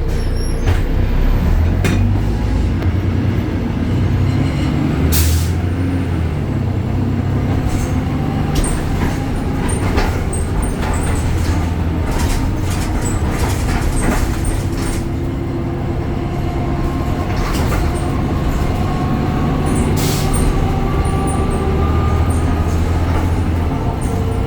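BredaMenarini Avancity Plus city bus with its Deutz Euro 5 diesel and ZF transmission running and driving, a steady low engine drone under a whine that rises in pitch over several seconds as the bus picks up speed. Rattles and clicks throughout, with two sharp loud knocks about 5 and 20 seconds in.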